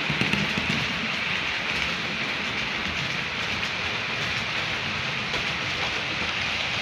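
OO gauge model HST train running on the track: the electric motor whirring and the wheels clicking over the rail joints, with no engine sound fitted. The rumble and clicking are strongest in about the first second as it passes close, then settle to a steady whirr as it runs away.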